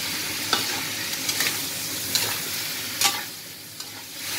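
Pork cubes sizzling in a hot stainless steel pan with a splash of water added, stirred with a metal spatula that scrapes and clinks against the pan several times. The sizzle drops briefly a little after three seconds in, then comes back.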